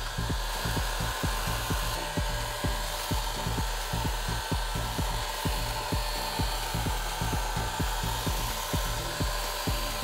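Hot air gun running steadily with a faint motor whine, blowing over a tray of desiccant beads from a BMW air-suspension compressor's air dryer to dry them; the beads rattle against the metal tray in irregular ticks, several a second.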